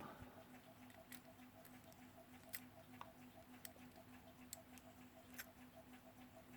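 Near silence, with about six faint, sharp clicks of pliers working the thin front plate of an alarm clock movement as a bend in it is straightened. A faint, even pulsing hum runs underneath.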